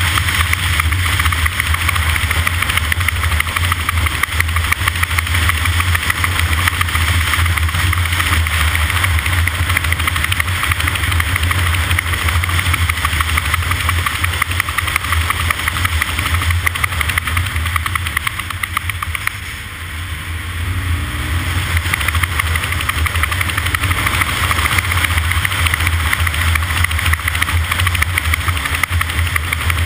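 An engine running steadily, with a brief dip in level about twenty seconds in.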